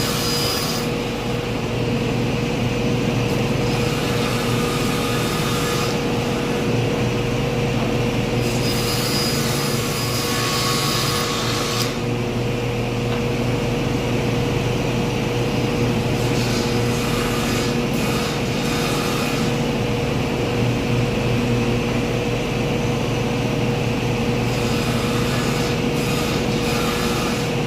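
Electric power tool running continuously while working wood for speaker-box panels, with a steady motor hum under it. The harsher cutting noise comes and goes several times as the tool bites into the wood.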